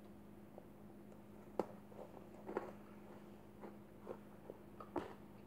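Faint biting and chewing of a grape together with a Twix bar: one sharp crunch about one and a half seconds in, then a few softer chewing clicks, over a steady low hum.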